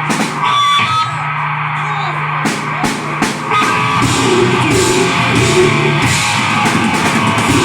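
Deathgrind band playing live: a held, droning distorted note with a few scattered drum and cymbal hits, then the full band of distorted guitar, bass and drums comes in about four seconds in.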